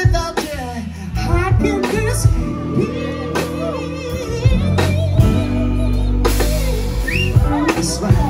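Live soul band playing: a male lead vocal with wavering sustained lines over guitar, bass and drum kit.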